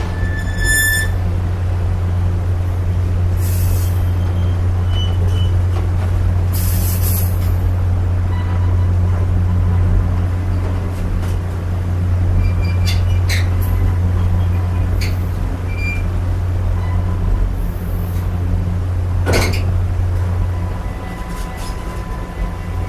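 Passenger coach in motion, heard from its open vestibule: a steady low rumble of the running train with brief high metallic squeaks, a couple of short hisses and a sharp clank late on.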